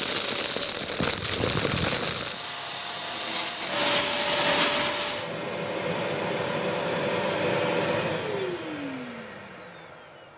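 Kärcher multi-purpose wet-and-dry vacuum cleaner running with a loud hiss of suction air. About eight seconds in it is switched off, and its motor whine falls in pitch and fades as the motor spins down.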